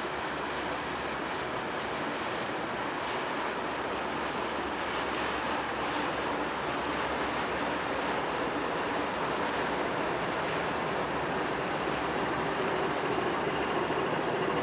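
Coastal cargo ship passing close by: a steady wash of water and engine noise with some wind, growing gradually louder, with a faint engine hum coming through in the second half.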